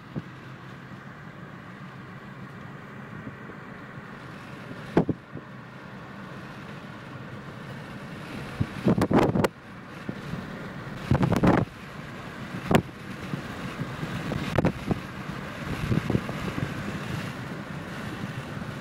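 Steady road and wind noise of a moving car, with several short thumps and bumps along the way.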